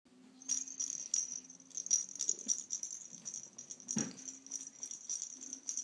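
Jingle bell inside a plush dog toy jingling in quick repeated shakes, with a low thump about four seconds in.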